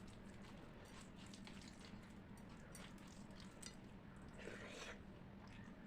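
Faint wet chewing and mouth clicks of someone eating rice with curry, with a brief louder smack or slurp about four and a half seconds in.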